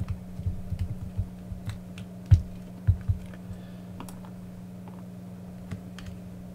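Light clicks and taps of hands handling the plastic air duster housing and its replacement cylindrical battery on a silicone work mat. There are two louder knocks about two and three seconds in, over a steady low hum.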